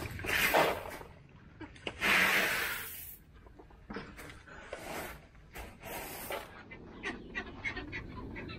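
Gravel crunching and scraping underfoot, with a loud rushing hiss about two seconds in and a run of quick crunching steps in the second half.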